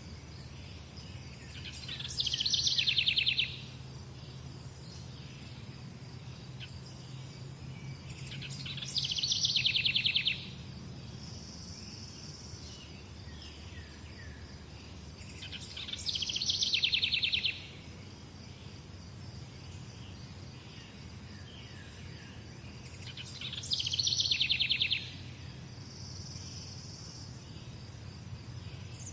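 A songbird repeating the same short, fast trilled song four times, about every seven seconds, with a few fainter high calls between, over steady background hiss.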